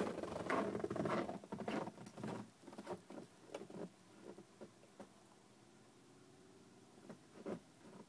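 Footsteps crunching on dry snow, a dense run of short crackles that fades over the first three or four seconds as the steps stop. After that it is quiet apart from a couple of faint clicks near the end.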